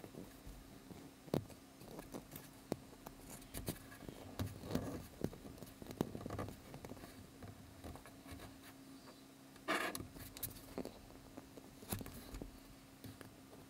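Hand-handling noise of a wine cork on a thin metal rod: scattered small clicks, taps and short scrapes as the cork is turned and rubbed in the fingers, with a longer rustling scrape about ten seconds in, over a faint steady low hum.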